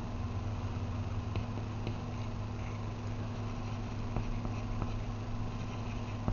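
A steady low background hum, like a fan or appliance running, with light scattered ticks from a pencil working on paper.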